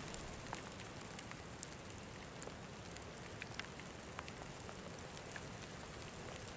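Quiet outdoor background at night: a faint, steady hiss with scattered light ticks and crackles.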